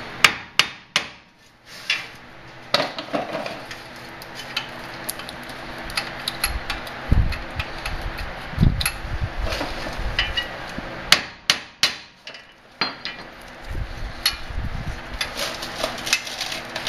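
Hammer blows on the steering knuckle of a Jeep Grand Cherokee ZJ's front Dana 30 axle: irregular sharp strikes, with a quick cluster at the start and another about eleven seconds in, and duller knocks in between.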